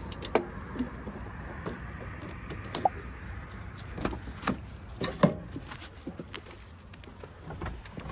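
Irregular clicks and knocks of closing up a van after refuelling: the fuel filler flap being handled and shut and the van being got into, with the sharpest knocks just under half a second in, near three seconds and a little over five seconds.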